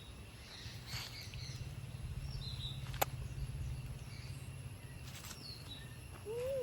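Birds chirping in short, scattered calls over a steady low rumble, with a single sharp click about three seconds in.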